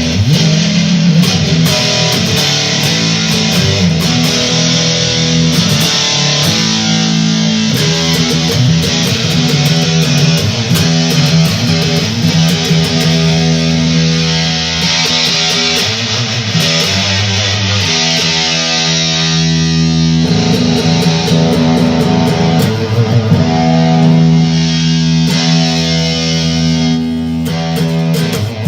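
Yamaha Pacifica electric guitar played through an Electro-Harmonix Big Muff Nano fuzz pedal: distorted chords strummed and let ring, loud and sustained throughout.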